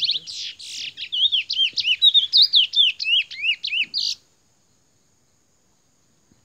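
Curió (chestnut-bellied seed finch) singing a fast run of clear down-slurred whistles, about three a second, with a few harsher notes at the start. The song stops abruptly about four seconds in.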